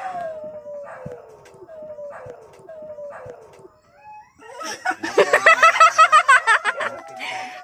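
A long howl, one tone sliding slowly down in pitch with small breaks, for the first few seconds. About four and a half seconds in, loud laughter from several people bursts out and runs to the end.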